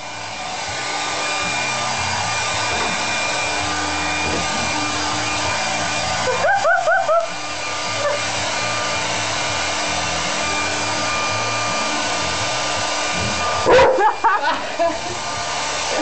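Handheld hairdryer blowing steadily on its cool setting, with a Labrador barking in two short bursts, about six and fourteen seconds in.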